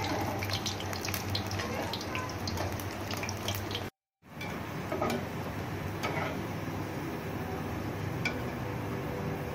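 Gram-flour pakoras deep-frying in hot oil in an aluminium karahi: a steady sizzle, with a few light clinks of a slotted spoon and tongs against the pan. The sound cuts out briefly about four seconds in.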